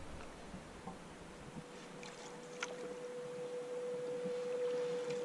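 Wooden paddle strokes moving a canoe through calm water, with a few light knocks. From about a second and a half in, a steady humming tone comes in and grows louder.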